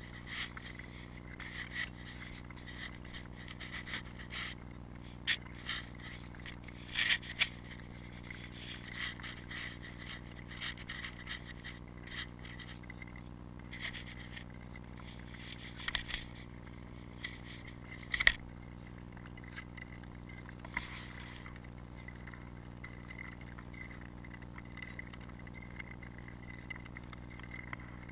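Tour skate blades scraping and gliding over river ice, with irregular sharp clicks and scrapes as blades and ski-pole tips strike the ice. A few of the clicks are louder.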